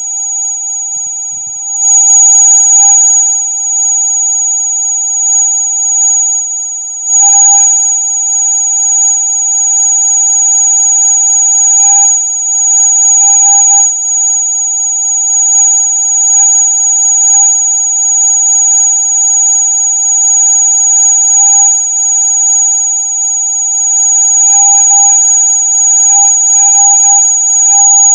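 Electronic rat-repellent sound: several steady pure tones held together without a break, a loud shrill high whine over a lower tone, like an alarm that never stops.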